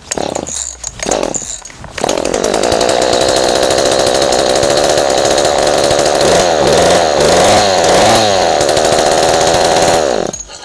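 Ryobi 40cc two-stroke chainsaw engine being pull-started with its exhaust off: a couple of short pulls, then it catches about two seconds in and runs loud, revving up and down, before cutting out near the end. It is firing after being flooded, and the owner thinks the exhaust has filled with fuel.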